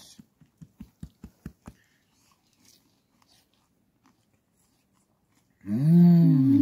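Close-up chewing of crunchy panipuri puris: a quick run of about ten low crunches in the first two seconds. Near the end, a loud hummed 'mmm' of enjoyment with the pitch arching up and then down, overlapped by a second held hum.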